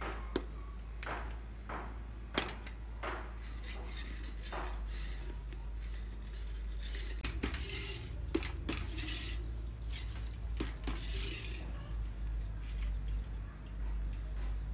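Irregular metallic clinks, knocks and scrapes from hand work on a bicycle's rear wheel: the tyre worked against the steel rim and tools against the hub, with a few longer scraping sounds partway through.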